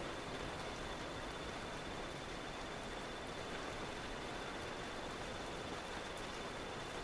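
Steady rain hiss of a thunderstorm ambience track, even throughout with no thunder claps, with a faint steady high tone running through it.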